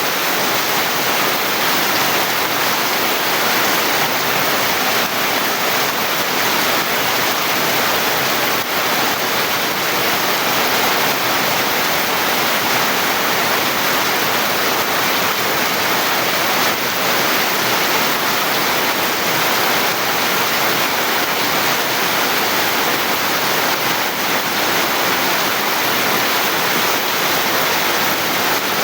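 Heavy rain falling steadily: a loud, dense, even hiss.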